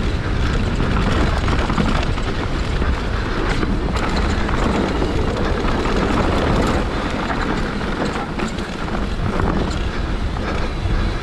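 Downhill mountain bike, a Scott Gambler, rolling fast down a dirt and gravel trail: steady tyre rumble on the ground with the chain and frame rattling and knocking over bumps, and a low wind rumble on the microphone.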